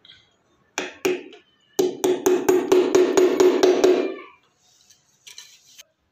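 Hammer tapping an old screw, used as a punch, into a wooden drawer front to mark a starting point for a drill hole: two taps, then a quick even run of about a dozen light taps, roughly five a second, each with a short ring.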